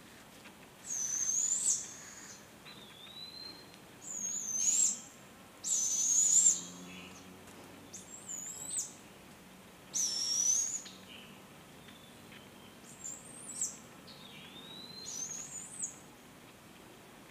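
Juvenile barred owl's begging calls: high, raspy screeches about a second long, repeated every couple of seconds while it is being fed.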